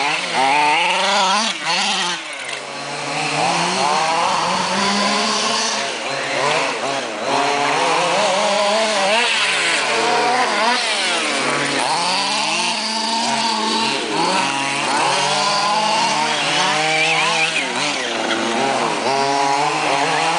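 Small high-revving engine, chainsaw-like in tone, revving up and falling back over and over, with no steady idle between.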